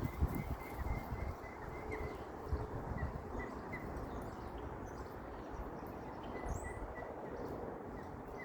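Ducklings cheeping, a steady string of short repeated peeps over an even outdoor noise haze, with a brief higher bird chirp about six and a half seconds in.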